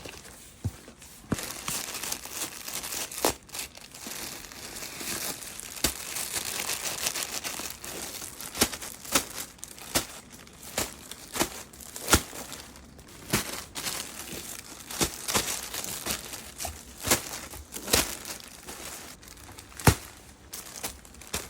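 Packaging being handled and unwrapped while laptop bags are unboxed: continuous crinkling and rustling, with frequent sharp snaps and clicks.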